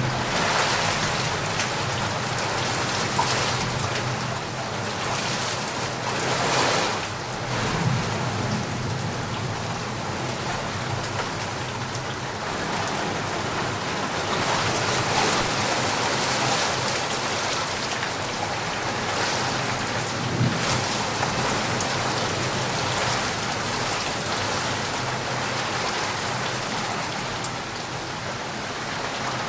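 Steady rain pouring, with low rumbles of distant thunder swelling a few times.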